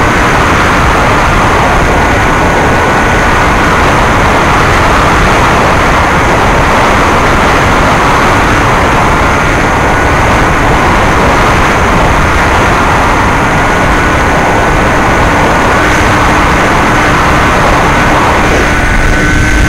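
Electric brushless motor (NTM 35-30A, 1400kv) and 9x6 propeller of a Bixler 2 RC plane running at steady cruise throttle: a high, nearly constant whine under loud rushing wind on the onboard camera's microphone.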